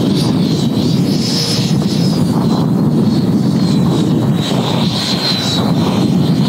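Electric ducted fan of a model jet (90 mm WeMoTec Midi Evo) whining at low throttle while the jet taxis on grass. The high whine rises in pitch about a second in, then settles back and holds steady over a continuous low rush.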